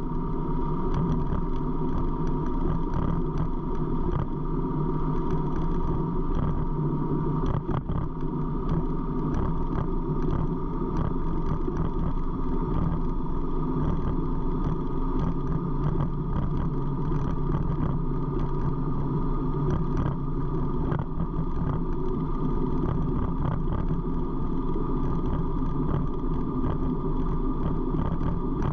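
Harley-Davidson V-twin motorcycle engine running steadily at low town speed, heard from the rider's seat with road and wind noise.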